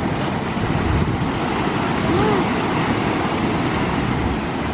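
Ocean surf washing in over lava rocks, a steady rush of water, with wind rumbling on the microphone.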